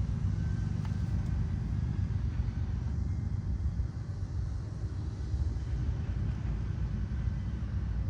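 Steady, uneven low rumble with no distinct events.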